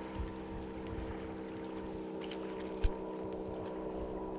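Steady hum of a distant motor, holding one pitch throughout, with wind rumbling on the microphone and a single sharp thump just before three seconds in.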